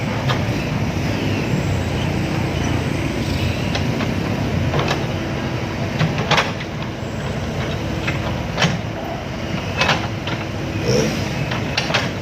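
Heavy construction machinery's diesel engine running steadily, with several short sharp knocks from about five seconds in.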